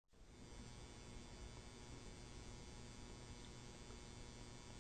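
Near silence: a steady, faint electrical hum and hiss in the recording's background.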